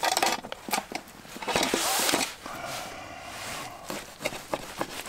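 Opinel folding knife cutting raw chicken on a wooden cutting board: scraping strokes with bursts of rustling, then a run of small taps of the blade on the board near the end.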